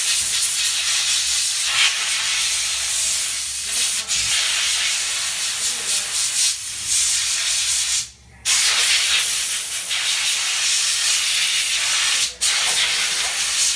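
Compressed-air blow gun blowing a loud, steady hiss of air over a metal laryngoscope blade to dry it, driving rinse water out of the crevices around the light. The air stops for about half a second around eight seconds in, with short dips near four and twelve seconds.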